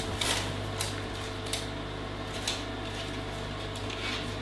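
Steady low machine hum in the room, with a few faint light clicks and scrapes as a wooden stick is drawn through soft fudge in a paper-lined metal tray.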